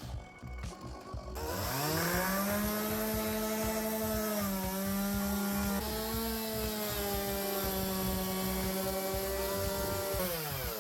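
Electric power tool motor spinning up, running steadily for about eight seconds without load, then winding down quickly near the end.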